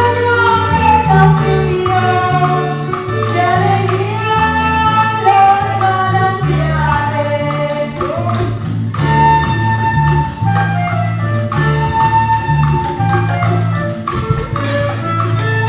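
Latin American song playing: a singing voice over a steady bass line.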